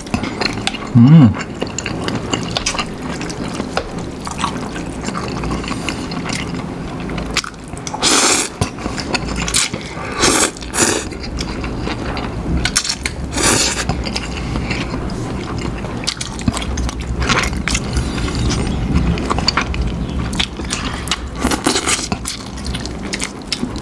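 Close-up eating sounds of two people slurping and chewing noodles in a spicy prawn soup, wet mouth sounds throughout, with several short, loud slurps near the middle.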